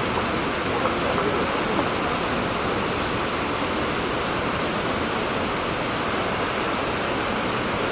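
Large waterfall rushing: a loud, steady roar of falling water.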